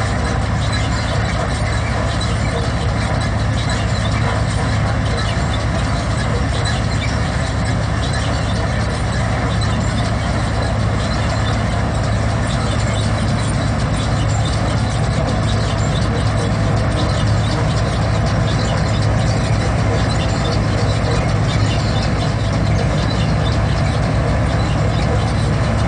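Punni groundnut combine harvester running steadily while working, its engine and threshing machinery going as the pickup reel gathers windrowed groundnut plants. A steady low hum under a dense mechanical noise, without let-up.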